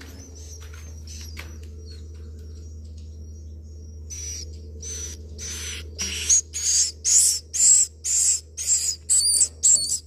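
Swiftlet chick in its nest calling: a run of short raspy hissing calls, about two a second, starting about four seconds in and growing louder, over a low steady hum.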